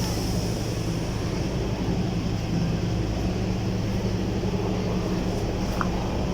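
An engine running steadily with a low hum, at an even level without any rise or fall.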